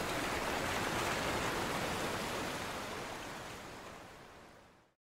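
Sea surf washing onto a beach, a steady rush of waves that fades away over the last two seconds.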